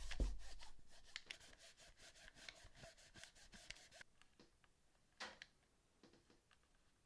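Rapid small clicks and rubbing from handling a PS4 controller, about five or six clicks a second for about four seconds after a soft thump at the start, then a few scattered clicks.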